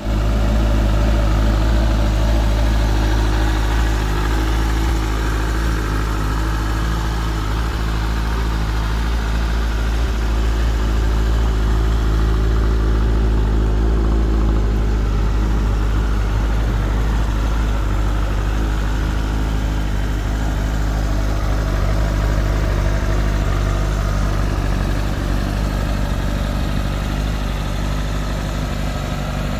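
Kawasaki ZZR1400's inline-four engine idling steadily, with no revs.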